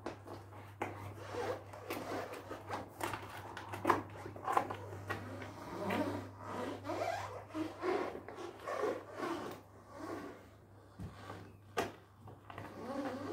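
A 200 kg tractor tyre being shoved and walked upright across the ground: the rubber scuffs and scrapes with irregular knocks, over a steady low hum.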